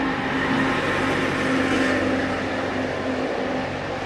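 Steady machine hum with an even rushing noise underneath.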